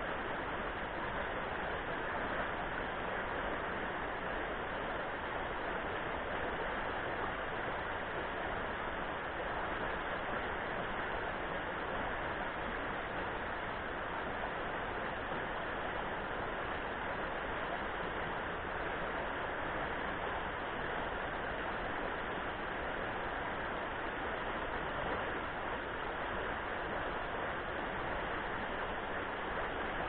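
Shallow mountain river rapids running over rocks: a steady, unbroken rush of water.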